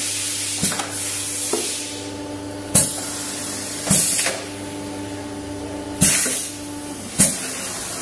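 Desktop pneumatic tray sealing machine cycling: compressed air exhausts from its cylinders in five sharp hissing puffs, a second or two apart, as the sealing press and tray drawer move, over a steady hum.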